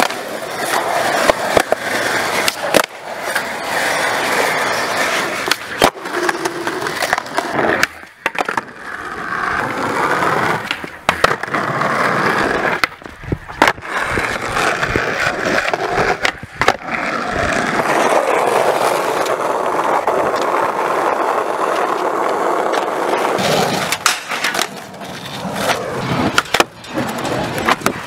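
Skateboard wheels rolling over asphalt, a steady gritty noise. Several sharp clacks come through it as the tail pops and the board lands during tricks.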